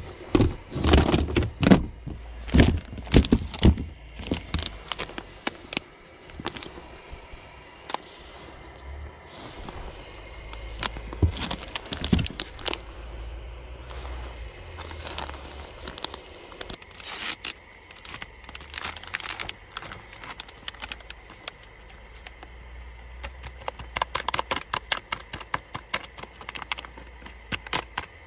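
Objects being handled: irregular clicks, knocks and rustling, thickest in the first few seconds and again near the end.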